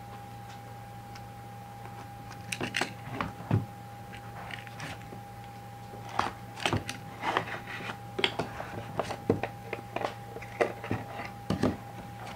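Hands handling and opening a box holding an autographed baseball in a clear plastic cube: irregular sharp clicks, taps and light scrapes from the box and the plastic cube. They start about two seconds in and come thicker in the second half, over a faint steady hum and whine.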